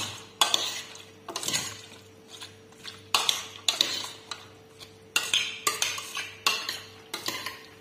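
Raw chicken feet and onions being mixed by hand with soy sauce in a stainless steel pot: wet squelching and the feet knocking against the pot, in repeated irregular strokes about one or two a second.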